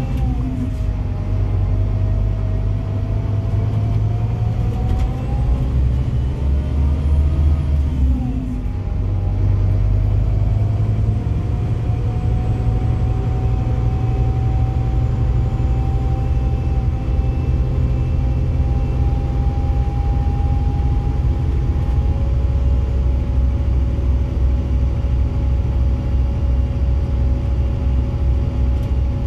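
Scania DC9 five-cylinder diesel engine and Opticruise gearbox heard from inside the bus while it pulls away: the engine note climbs, drops at a gear change near the start and again about eight seconds in, then rises slowly and settles into a steady drone.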